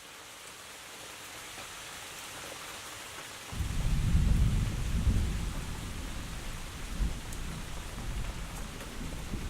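Steady rain hissing, then thunder rumbling in from about a third of the way in, deep and rolling in swells that outweigh the rain.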